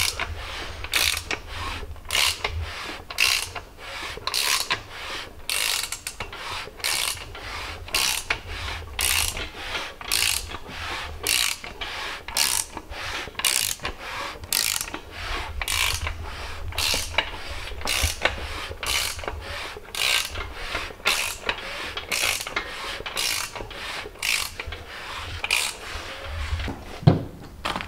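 Socket ratchet clicking in steady, even back-and-forth strokes, a little under two a second.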